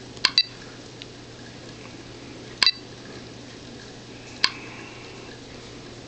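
Sharp, ringing clicks of address entry on a truck GPS touchscreen: two close together near the start, one about halfway, one later, over a faint steady hum.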